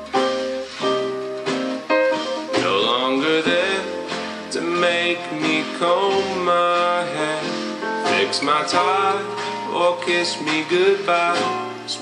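A song with guitar and singing, played through a Tribit XSound Surf portable Bluetooth speaker. The bass is thin.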